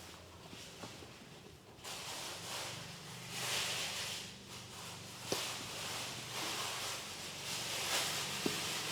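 Running water hissing steadily, swelling and fading in waves, with two small clicks.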